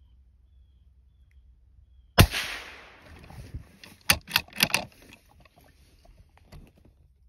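A single shot from a scoped rifle, a sharp crack about two seconds in with a trailing echo. About two seconds later come four quick, sharp knocks in under a second.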